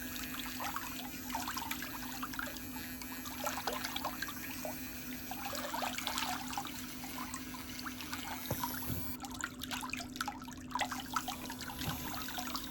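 Electric nail file (e-file) running at a steady pitch, its rotating bit grinding and buffing a toenail with a scratchy, crackling friction sound.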